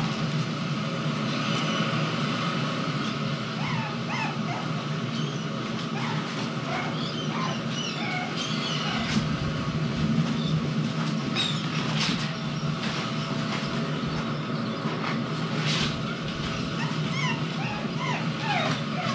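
Jack Russell Terrier puppy whimpering in many short, high squeaks that rise or fall, over a steady low hum. A few sharp taps come in the middle.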